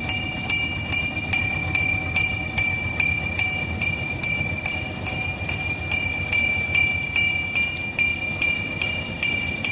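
Hand-rung bell on a small narrow-gauge field-railway locomotive, struck about two and a half times a second, its ringing carrying over from stroke to stroke, over the low running of the locomotive's engine as it hauls loaded tipping wagons.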